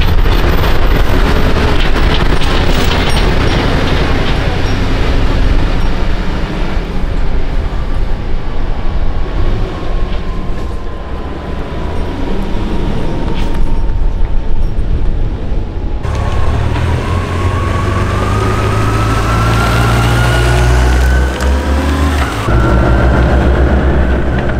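Scania V8 heavy-haul tractor unit pulling a loaded low-loader trailer past, its diesel engine rumbling heavily with a slowly falling engine tone. About two-thirds of the way through it cuts to motorcycles accelerating away, their engine pitch rising.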